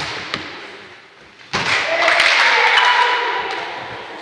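A sharp smack of a volleyball, then about a second and a half in, a burst of players' shouting that rings through the gym hall for a couple of seconds and fades.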